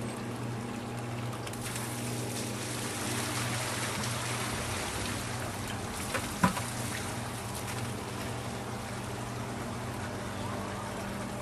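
Electric sump pump running with a steady hum while its discharge water splashes and trickles. A single sharp knock about midway is the loudest sound.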